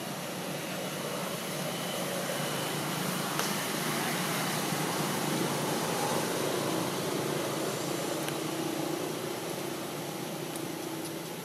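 A motorbike passing on a nearby road, its engine noise swelling and then easing off over a steady background hiss.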